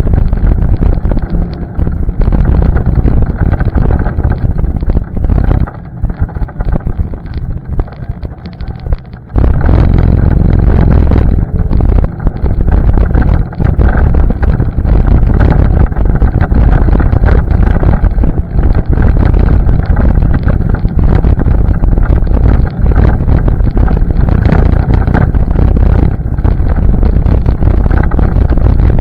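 ATV engine running on a trail ride, with wind buffeting the microphone. The engine noise drops back about six seconds in and picks up again sharply about nine seconds in.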